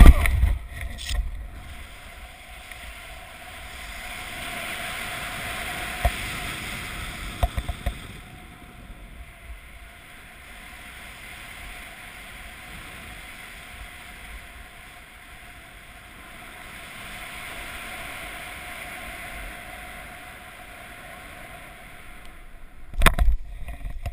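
Wind rushing over a BASE jumper's body-mounted camera microphone under an open parachute canopy, swelling and fading during the glide. It is loudest at the very start, as the parachute opens after freefall, and drops within about a second. A few sharp clicks come around the middle, and a short loud burst of wind and handling noise comes near the end as the jumper lands.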